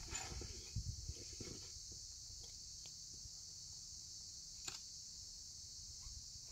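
Faint, steady high-pitched insect chirring, with low rumbles in the first second or so and a single short click a little before five seconds in.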